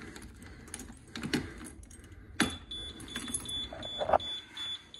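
Ignition keys jangling on their ring in a school bus's dashboard, then a sharp click about two and a half seconds in. After the click the dashboard warning beeper starts a rapid high beeping, about four beeps a second.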